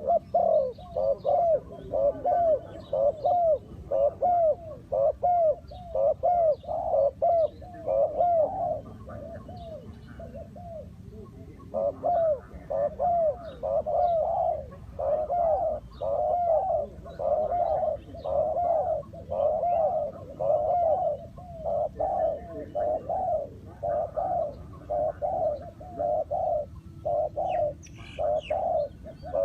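Spotted doves cooing: long runs of quick, repeated arching coos, with a short pause about a third of the way through before the calling resumes.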